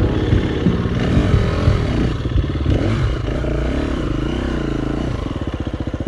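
Dirt bike engine running at low revs, its pitch rising and falling a few times as the throttle is worked.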